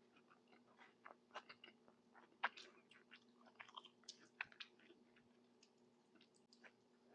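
Faint, close-miked chewing: soft, irregular wet mouth clicks and small crunches as a mouthful of tajine is eaten, with one sharper click about two and a half seconds in.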